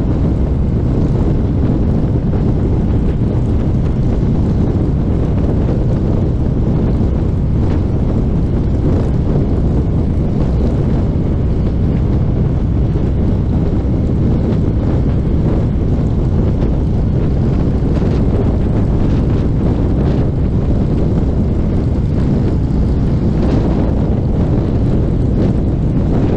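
Wind buffeting the microphone over a motorcycle riding at steady highway speed: a constant low rumble that does not change.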